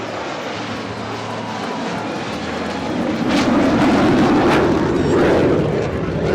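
Fixed-wing aircraft engine noise at an airshow, a steady rushing drone that swells louder about three seconds in as the plane passes.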